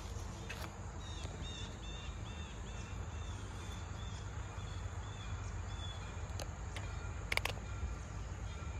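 Outdoor ambience with a steady low rumble. A run of short, high chirps repeats two or three times a second for about five seconds, then fades out, and a few sharp clicks come near the end.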